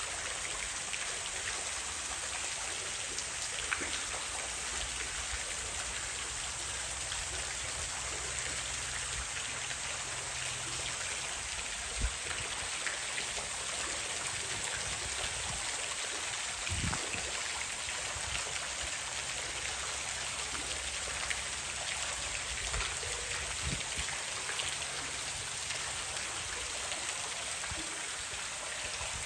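Steady splashing hiss of running water from a small waterfall pouring into a pool, with a couple of brief knocks partway through.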